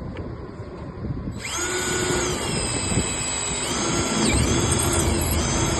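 Power drill running with a whine that starts about a second and a half in. Its pitch sags and recovers a couple of times as the bit loads up.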